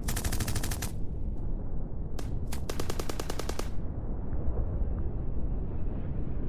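Two bursts of rapid automatic rifle fire, each about a second long, with a single shot between them. A steady low rumble runs underneath.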